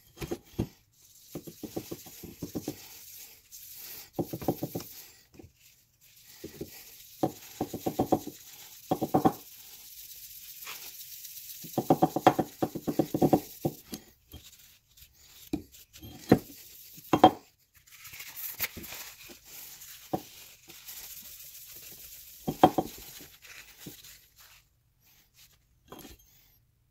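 A rag rubbing polish over a steel axe head in bursts of quick back-and-forth strokes. The head scrapes and knocks against the wooden workbench now and then.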